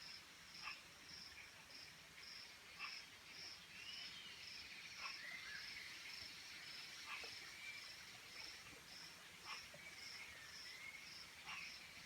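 Faint nature ambience: an insect chirping steadily in a high, even pulse about two to three times a second, with a few whistling calls that glide up and down, and occasional short clicks.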